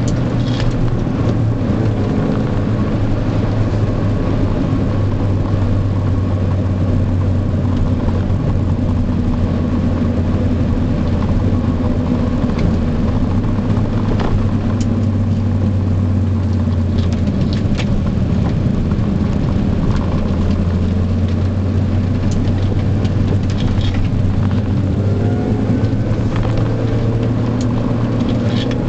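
Mini Cooper John Cooper Works engine, tuned to 245 CV, heard from inside the cabin, running at a steady cruise with road noise. Near the end the engine note starts to climb as the car speeds up.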